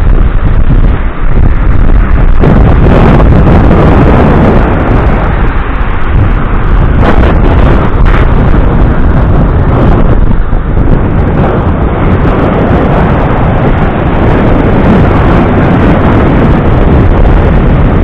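Strong wind buffeting the camera microphone, loud and continuous, over the surf of a stormy sea washing up onto the sand.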